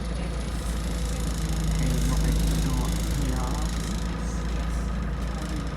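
A bus's engine and road noise heard from inside the passenger cabin, a steady low rumble and hiss that swells slightly about two seconds in.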